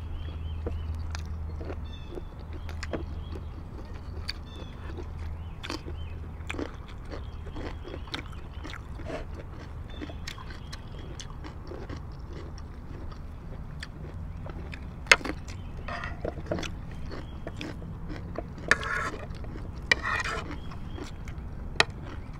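Close-up eating sounds: chewing and mouth smacks with frequent sharp clicks of spoons and dishes. A low hum runs through the first several seconds, and there are two short crunchy bursts near the end.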